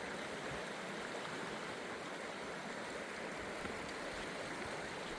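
Steady rush of flowing river water under a footbridge.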